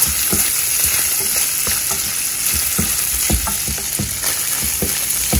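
Diced bacon sizzling as it fries in a nonstick frying pan, with a steady high hiss. A wooden spatula stirring it taps and scrapes against the pan several times a second, irregularly.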